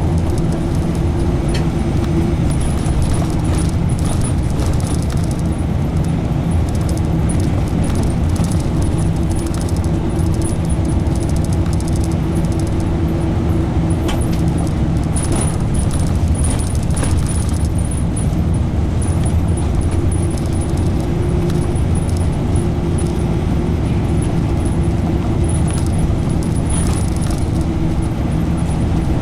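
Cabin of a route bus on the move: a steady engine and road drone, with light rattles and clicks from the bus's fittings now and then.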